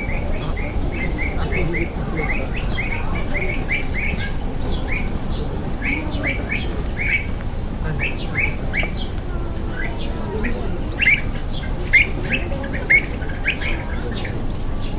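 Birds chirping: many short, high calls, several a second, over a steady low background rumble.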